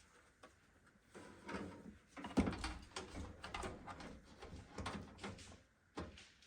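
Motherboard being lowered into a PC case and seated over its standoffs: a series of light knocks and scrapes of the board against the case, the loudest about two and a half seconds in.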